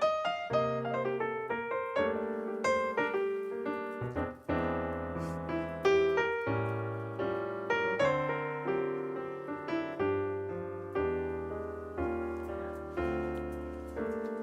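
Background piano music: a gentle melody of struck notes, each ringing and fading.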